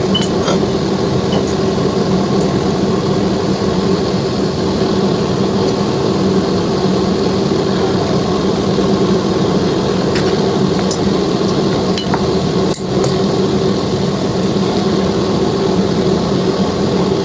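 A steady, loud machine hum with a low drone, broken by a few light clinks near the end.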